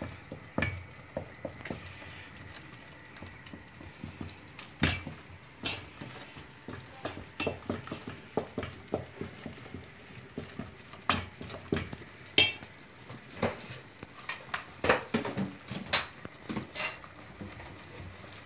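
Wooden spoon stirring a thick tomato and flour mixture in a stainless steel pot, knocking and scraping against the pot's sides and bottom in irregular clicks.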